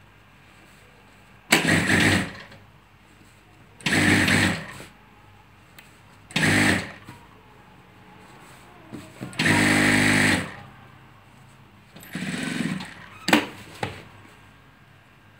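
Industrial sewing machine stitching a pocket onto an apron in five short runs of about a second each, stopping between runs, with two short clicks near the end.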